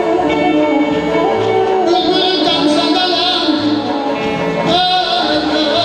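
Azerbaijani mugham played live: a plucked tar holding sustained notes with recurring low beats on the gaval frame drum. About two seconds in, a male singer joins with wavering, ornamented vocal runs.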